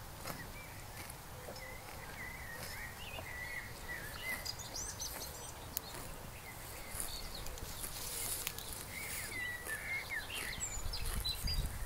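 Pasture ambience: small birds chirping on and off in the background, with a low rumble that grows louder near the end.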